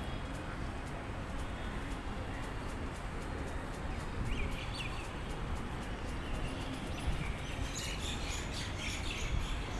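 Small birds chirping: a few calls about halfway through, then a busier run of quick, high chirps near the end. Under them runs a steady low rumble of breeze and outdoor background.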